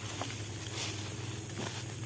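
Footsteps and rustling of dry brush and palm fronds as a person pushes through dense undergrowth, in irregular crunchy bursts over a steady low hum.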